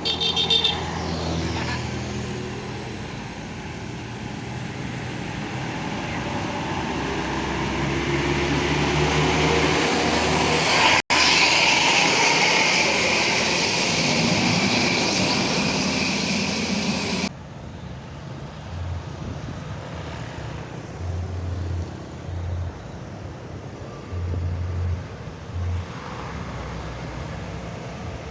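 Heavy road traffic passing: engine and tyre noise that builds as a vehicle approaches and stays loud, then cuts off suddenly to quieter road noise with a few short low hums.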